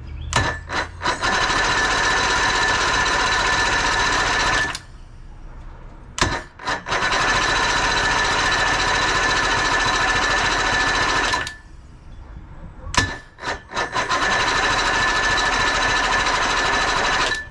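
Electric starter cranking a 1976 Johnson 135 hp two-stroke outboard in three attempts of about four to five seconds each, with a steady whine. Each attempt opens with a few short stutters and cuts off abruptly.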